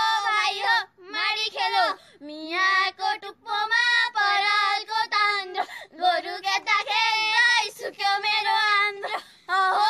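High female voices singing a traditional Nepali millet-threshing song in short, drawn-out phrases with brief breaks between them.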